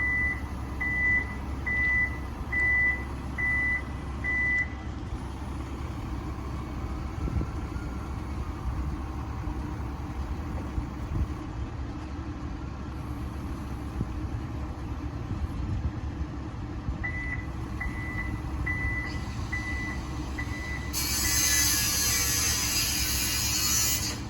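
Diesel construction machinery running steadily, with a reversing alarm beeping about once a second in two runs, the first at the start and the second in the last third. A loud hiss starts near the end.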